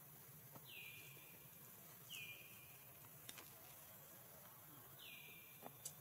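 A faint high call repeated three times, each a quick downward slide settling into a held note about half a second long, over a quiet forest background, with a few soft clicks near the end.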